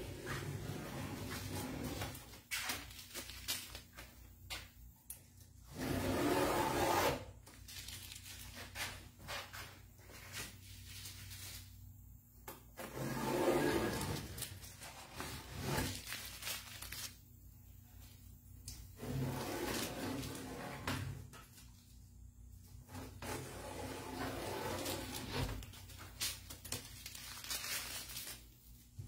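Blue painter's tape being peeled off a painted tabletop in long strips. Each pull makes a rasping rip lasting about a second, repeated several times with crinkling of the pulled tape in between.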